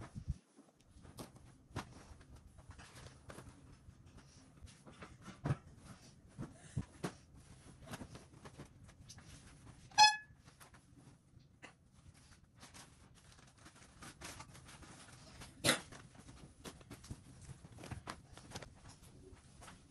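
Bedding being handled and spread over a plastic-wrapped mattress: crinkling plastic and rustling cloth with scattered light knocks. About halfway through comes one short, loud pitched beep, and a sharp knock follows a few seconds later.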